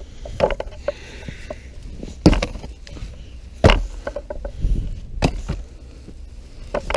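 Footsteps crunching in snow: a handful of separate heavy steps, roughly one every second and a half, over a steady low rumble.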